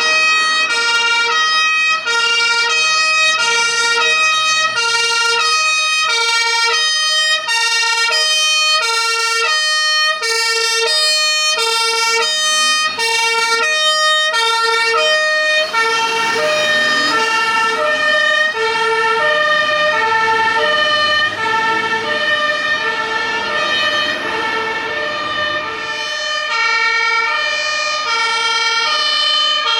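Fire engine's two-tone siren (German Martinshorn) alternating steadily between a high and a low note. Engine and road noise rises underneath about halfway through.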